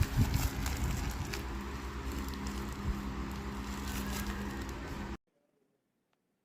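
Vacuum cleaner motor running steadily with a low hum and a rushing airflow noise, cut off abruptly about five seconds in.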